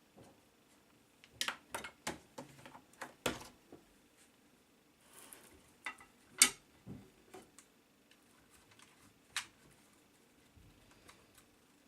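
Irregular light clicks and knocks of workshop parts being handled and set in place, with a cluster in the first few seconds, a single sharp click about six and a half seconds in and another about nine and a half seconds in.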